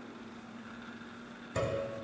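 Live plucked-string music: a low note rings and slowly fades, then a new note is plucked about one and a half seconds in and rings on.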